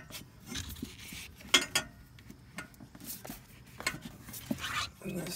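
Scattered light metallic clicks, taps and scrapes as a transmission dipstick tube is worked into place among the exhaust headers and frame of a 2005 Ford F-150.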